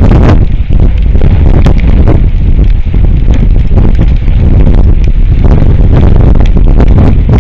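Strong wind buffeting an outdoor microphone: a loud, continuous low rumble broken by frequent short crackling gusts.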